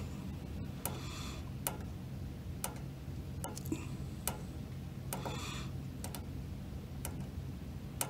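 Small tactile push-button on a furnace control board clicking again and again, roughly once a second, as the right scroll button is pressed to step through the menu. A faint steady hum runs underneath.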